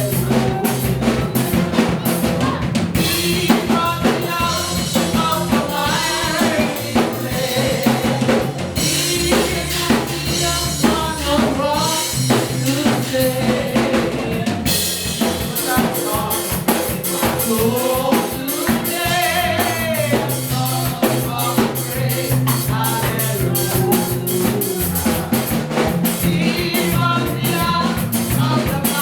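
Live contemporary worship music from a church band: drum kit with snare and bass drum keeping a steady beat under sustained bass notes, with voices singing the melody.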